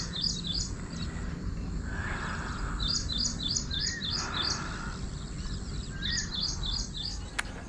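Small birds chirping in quick runs of short, high chirps: three bursts, about three seconds apart, over steady background noise. A soft rustle comes about two and again about four seconds in.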